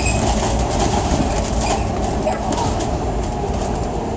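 Citybus bus in motion, heard from on board: a steady low engine and road rumble with light rattling over it.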